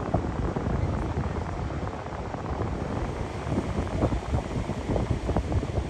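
Wind gusting on the microphone over a steady rush of ocean surf on the beach.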